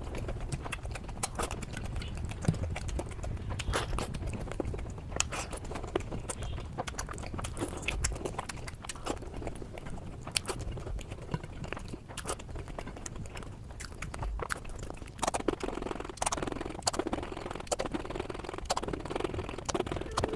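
Close-miked eating sounds: a person chewing, with many short sharp clicks and crunches.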